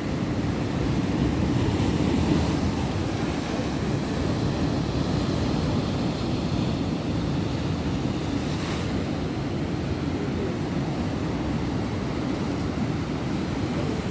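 Heavy surf of a rough, stormy sea breaking continuously, a steady low rush, with wind noise on the microphone.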